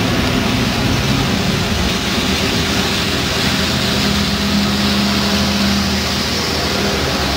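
Diesel single-decker city buses passing close by, their engines running at a steady drone with tyre noise on a wet road.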